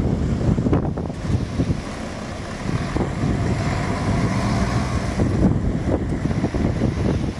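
Road vehicle running nearby, with wind rumbling on the microphone.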